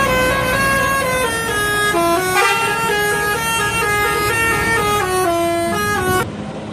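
Indonesian bus 'telolet' horn, a multi-trumpet musical air horn, playing a quick tune of short stepped notes with several notes sounding together. It stops abruptly near the end.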